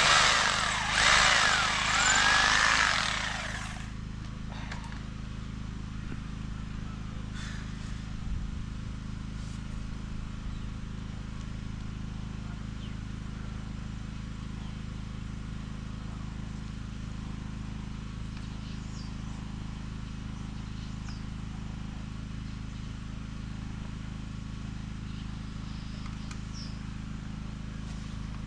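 Power drill boring holes in loud, wavering bursts, cutting off about four seconds in. A steady low hum carries on after it.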